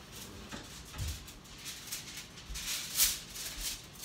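Aluminium foil crinkling in short rustling bursts, loudest about three seconds in, with a soft low thump about a second in.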